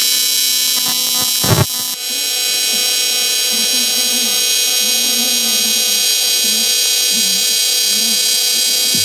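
AC TIG welding arc buzzing steadily while welding a seam on an aluminium intercooler end tank, with a brief surge about a second and a half in. Music plays underneath.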